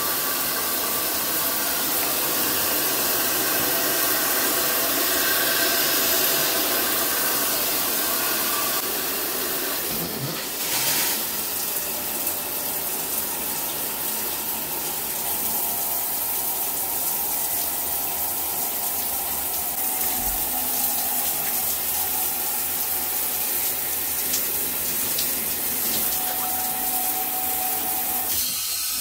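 Steady rush of water from a Kohler Ajuste 3-in-1 dual showerhead, the fixed head and the handheld head both spraying hard onto the tiled shower walls.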